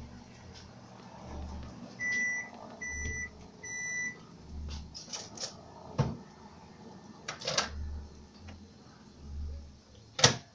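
Three short electronic beeps, evenly spaced, about two seconds in, over a low throb that swells about once a second. A few sharp clicks follow, the loudest one near the end.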